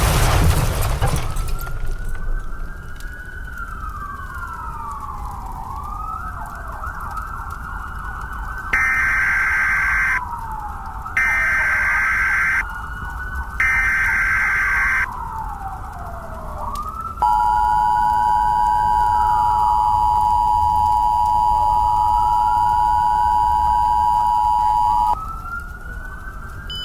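A loud blast at the start, then an emergency siren wailing slowly up and down. Over it come three short raspy Emergency Alert System data bursts (the SAME header), then the two-tone EAS attention signal held for about eight seconds.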